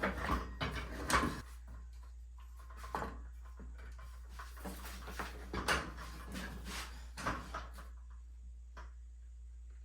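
Unplugged circular saw being handled while its blade depth is adjusted: scattered clicks, knocks and rattles of the base plate and depth lever, with no motor running.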